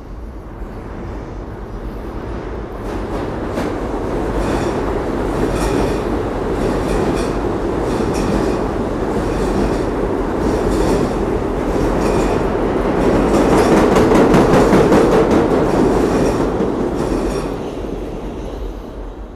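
New York City subway train passing through without stopping, its rumble building, peaking and fading away. The wheels clack in a steady rhythm over the rail joints as it goes by.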